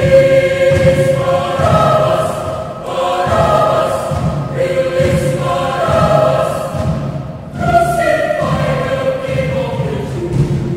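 Mixed choir of women's and men's voices singing held chords that shift every second or two.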